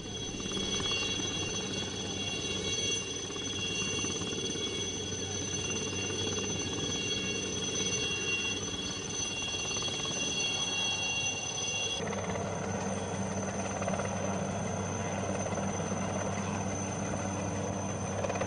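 Helicopter hovering close by: a steady rotor thrum with a high turbine whine over it. About twelve seconds in the high whine drops away and the sound turns broader and rougher as the helicopter lifts off.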